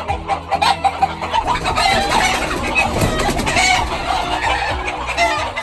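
Chickens clucking and calling, several birds at once, over background music.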